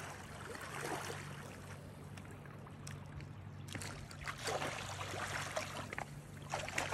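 Faint lapping of shallow water on a pebble shore, with small sharp clicks of stones shifting as a person wades in barefoot, over a steady low hum.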